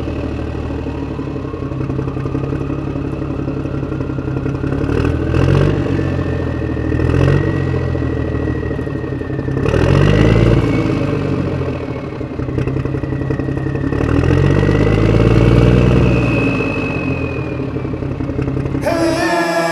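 A truck engine running and revving up and down in slow swells, with a thin whistle that climbs over the first few seconds and then holds.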